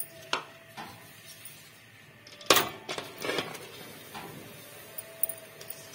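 Drained boiled rice tipped from a strainer into a metal pot of melted jaggery, with knocks and clinks of the utensil against the pot. The loudest clatter comes about two and a half seconds in.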